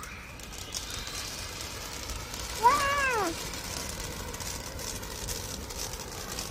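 Hand-held dragon wand firework fountain spraying sparks with a steady hissing crackle. About two and a half seconds in, a single short call, rising then falling in pitch, stands out as the loudest sound.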